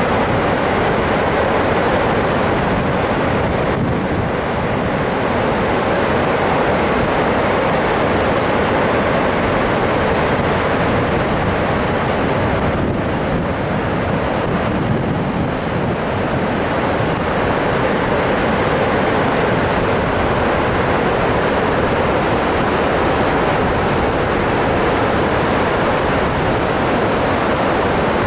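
Floodwater spilling from Allatoona Dam's open spillway gates and churning in the tailwater below: a loud, steady rush of water.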